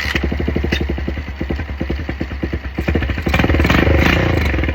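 Mini chopper's small motorcycle engine running on carb cleaner sprayed into the air filter, with no fuel tank fitted: a rapid, even firing, a long-idle engine firing after two to three years of sitting. It gets louder about three seconds in.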